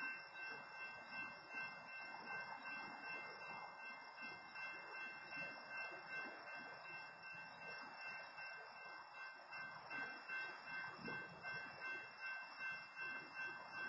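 Railroad crossing warning bell ringing steadily at about two strikes a second, sounding while the stopped train occupies the crossing.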